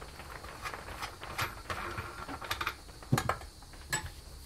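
Small metal clicks and clinks as the cutting disc and its clamping flange are handled and taken off a small angle grinder, with two louder knocks about three and four seconds in.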